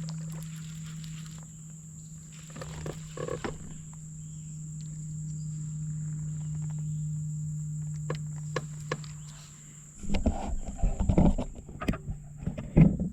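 A steady low hum, then from about ten seconds in loud, irregular splashing and thumping as a hooked bowfin (grinnel) thrashes in the water at the boat.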